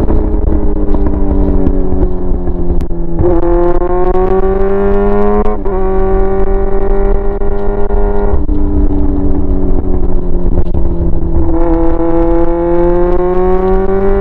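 Yamaha R6's inline-four engine running through a straight pipe with no muffler while the bike is ridden. It winds up in pitch, shifts up about five and a half seconds in, holds, drops back when the throttle eases off about eight seconds in and slowly falls, then winds up again near the end.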